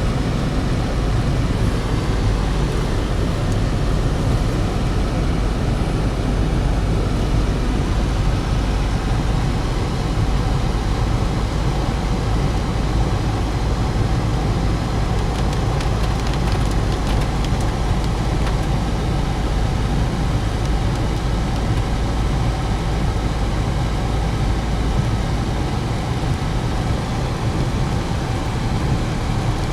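A car driving, a steady low rumble of engine and road noise with no breaks.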